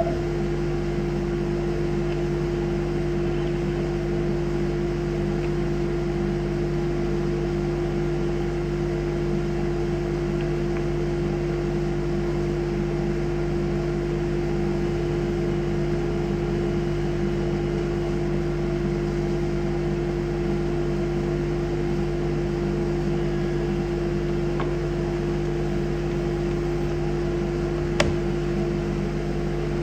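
CNC router spindle running with a steady, even hum. There is one sharp click near the end.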